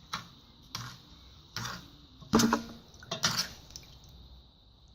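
A spoon knocking and scraping against a pan as the ingredients are stirred together. There are about six short strokes, the loudest a little over two seconds in.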